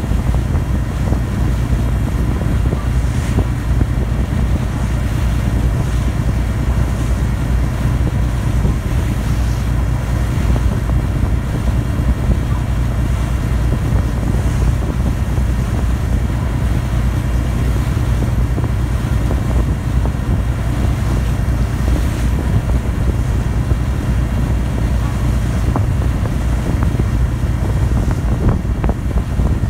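Ferry's diesel engines running steadily under way: a constant low drone, with wind noise on the microphone.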